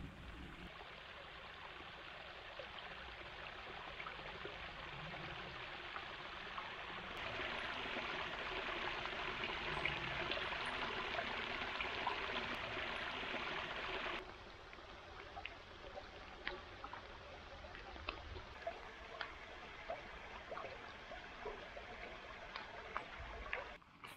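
Small woodland stream trickling over leaf litter, a steady rush of running water. It grows louder for several seconds in the middle, then goes softer with scattered light ticks.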